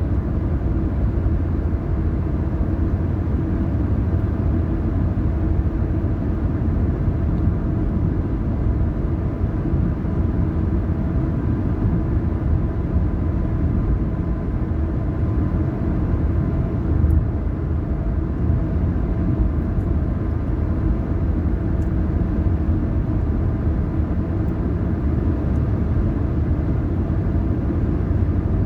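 Steady low rumble of a car driving: engine and tyre noise at an even speed.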